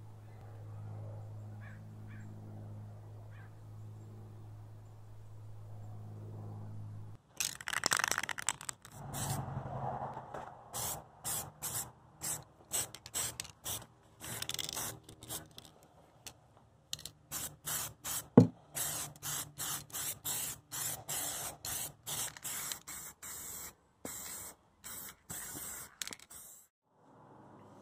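Aerosol spray-paint cans spraying in many short bursts, each lasting about a second or less, one after another with brief gaps. Before the spraying starts, about seven seconds in, there is a steady low hum.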